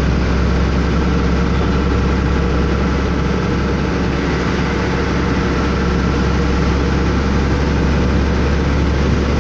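A vehicle's engine running steadily with a low drone, heard from inside the cabin while driving, with tyre noise from the wet road underneath.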